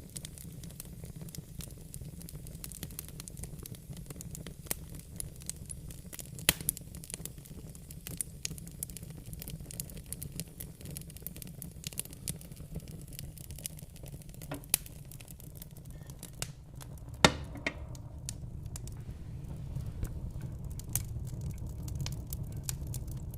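Wood fire in a fireplace crackling, with scattered sharp pops over a low steady rumble. The loudest pop comes about three quarters of the way through.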